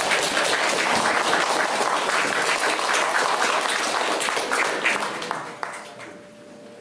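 Congregation applauding, a dense patter of many hands clapping that dies away about five and a half seconds in.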